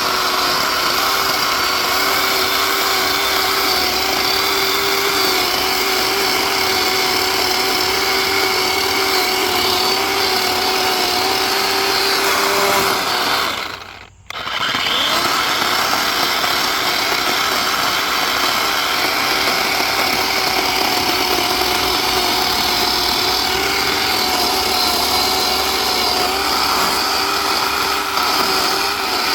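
DeWalt 20V 12-inch battery chainsaw (DCCS621B) running steadily as it cuts through a thick section of tree. It cuts out briefly about halfway, then runs again.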